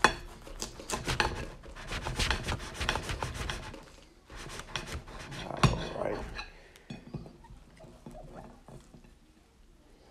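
A knife sawing through a salmon cake sandwich on a plate: quick back-and-forth strokes for about four seconds, then a second run of strokes with one sharp knock about five and a half seconds in, followed by a few faint clicks.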